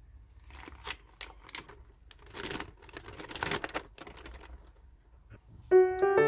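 Irregular taps, clicks and short rustles of hands handling things, then piano music begins near the end.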